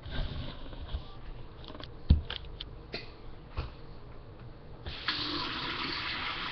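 A few handling knocks and clicks, the sharpest a single thump about two seconds in. About five seconds in, a kitchen faucet is turned on and water runs steadily into a plastic measuring cup.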